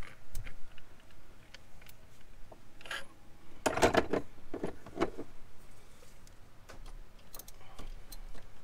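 Scattered clicks and metal clinks of a ratchet and socket working on the power steering pump's mounting bolts through the pulley, with a louder cluster of knocks about four seconds in.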